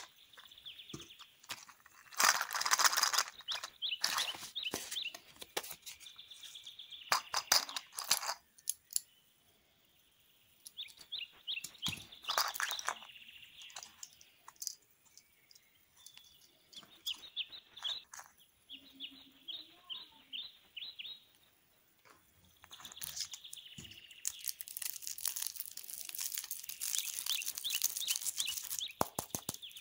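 Small plastic toys and a plastic capsule being handled: scattered clicks and rattles, with a short run of rapid ticks about two-thirds through. Near the end a lollipop's plastic wrapper crinkles as it is pulled off.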